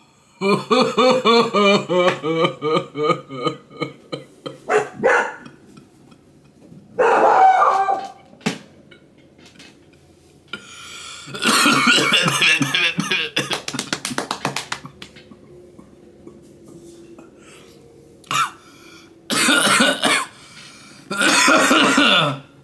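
A man coughing in fits after a long hit from a cannabis vape cartridge: a quick run of coughs in the first few seconds, a longer, harder fit in the middle, and two more bursts near the end.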